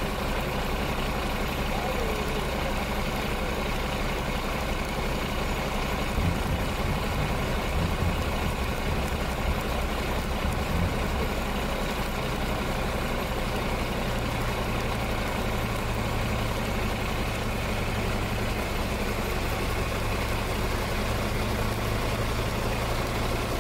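Heavy vehicle engine running steadily at low revs under a constant hiss. There are a few louder low rumbles between about six and eleven seconds in, and the hum settles onto a new steady pitch about twelve seconds in.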